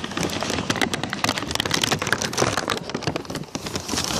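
Paper sack crinkling and rustling right against the microphone as the phone is pulled out of the bag: dense, continuous crackling.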